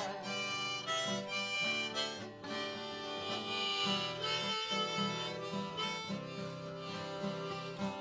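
Blues harmonica solo played on a neck-rack harmonica over two strummed acoustic guitars keeping a steady rhythm.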